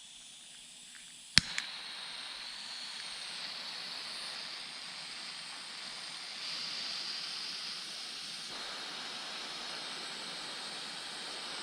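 A sharp click, then the steady hiss of butane gas flowing from a Power Probe butane soldering tool, getting a little stronger partway through.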